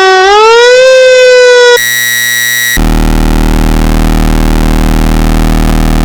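Sterling Model 30 Sirenlite electronic fire truck siren switching tones. A wail rises in pitch for under two seconds. A steady horn-like tone follows for about a second, then a steady buzzing tone runs through the rest.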